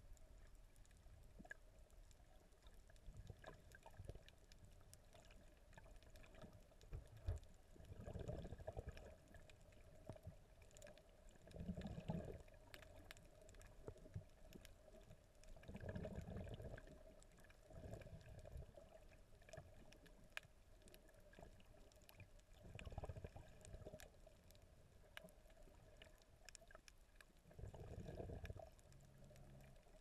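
Faint, muffled underwater water sound picked up by a camera just below the surface: swells of sloshing water every few seconds, with scattered faint clicks.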